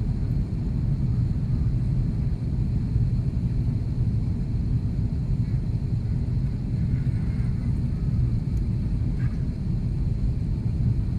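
Steady low cabin rumble of an Airbus A330-300 in descent, heard from a window seat beside the wing: the engine and airflow noise holds even throughout, with most of its weight in the deep range.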